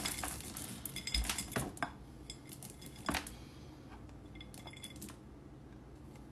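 Dry dog kibble rattling and clinking against a metal bowl as it is scooped out of a plastic storage bin: a burst of clatter in the first two seconds, then a few scattered clinks.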